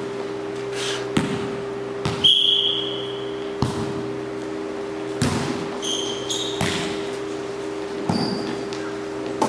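Volleyball rally in an echoing sports hall: a string of sharp ball hits off players' forearms and hands, about one every second or so, with a few short high squeaks, like sports shoes on the wooden floor, over a steady hum.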